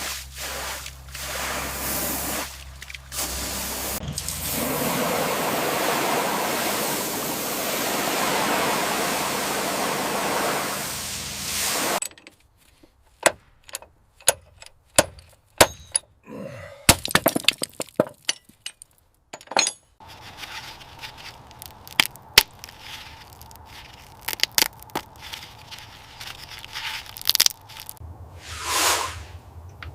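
Restoration work noises: a steady, loud hiss for about twelve seconds, which then cuts off abruptly. After it comes a run of sharp cracks, clinks and knocks, with a faint hum behind them and a short whoosh near the end.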